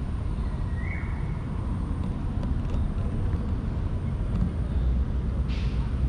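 Steady low outdoor rumble, with a brief high chirp about a second in and a short rustling hiss near the end.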